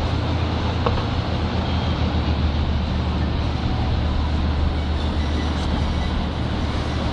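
Engine of a Seine tour boat (bateau-mouche) running as it passes close by: a steady low drone under a steady background hiss.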